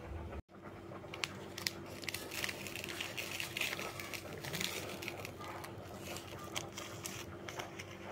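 A seasoning sachet of powdered stock crinkling and crackling as it is handled and shaken out, in quick irregular crackles. A steady low hum runs underneath.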